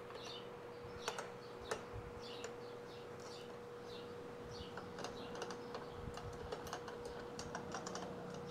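Faint, scattered light clicks and clinks of small metal tools being handled and set down, over a steady faint hum.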